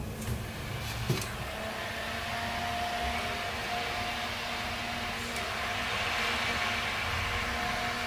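Computer power-supply cooling fan (12 V, 0.3 A) running steadily off a bench supply at about 8 volts, an even rush of air with a faint steady hum, its bearing freshly cleaned and oiled to cure a strange vibration at low speeds. A light click about a second in.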